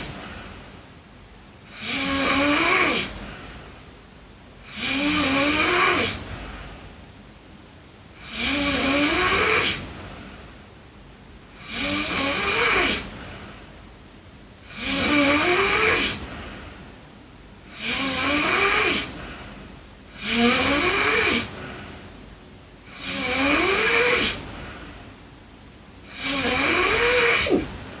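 A girl snoring in her sleep: a regular snore about every three seconds, each lasting about a second, with a pitch that rises through each snore.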